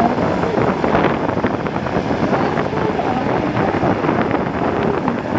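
Military rescue helicopter hovering low overhead while a rescuer is winched beneath it: a loud, steady noise of rotor and turbine engines.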